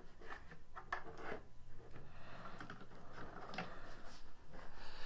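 Faint clicks and rubbing as a battery tender's alligator clamps are unclipped from the car's jump-start terminals and the charging cables are handled, a few separate clicks spread through.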